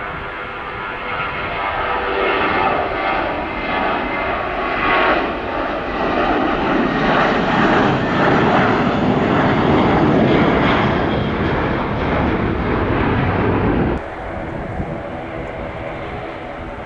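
Boeing 787-9 Dreamliner's jet engines at takeoff power as it starts its takeoff roll: a loud jet roar with a steady whine in it, growing heavier about six seconds in. Near the end it drops suddenly to a quieter, more distant roar.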